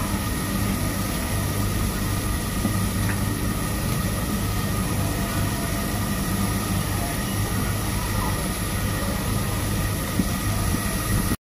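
A steady mechanical hum with an even hiss underneath, unchanging throughout, while gulab jamun fry gently in oil on a low flame.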